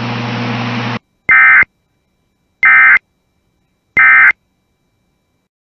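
EAS end-of-message (EOM) SAME data tones: three identical short bursts of digital tones about a second apart, marking the end of the alert. Before them a steady broadcast hum cuts off about a second in.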